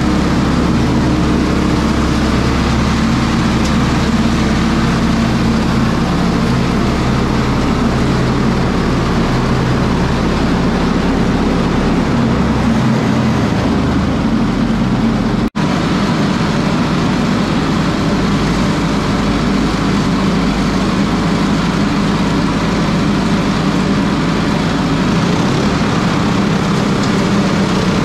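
Small gas engine of a straw bedding chopper running steadily as the machine chops straw, with a brief break in the sound about halfway through.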